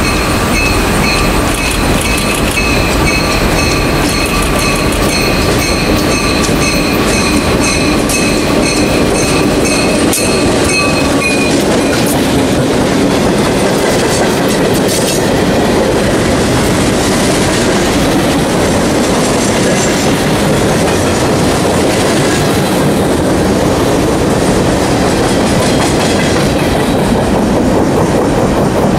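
CSX freight train with two EMD GP38-2 locomotives rolling past close by, its cars clacking over the rail joints with a steady rumble. For about the first twelve seconds, high ringing tones sound over the rumble.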